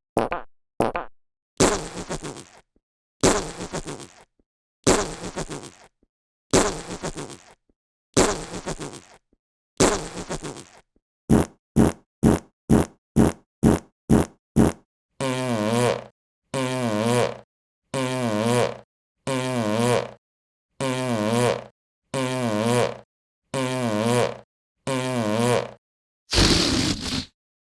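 A sequence of fart sound effects, one after another with short gaps. First come spaced farts of about a second each, then a rapid string of short ones, then a run of longer farts about a second apart with a wobbling pitch. A final, louder and rougher one comes near the end.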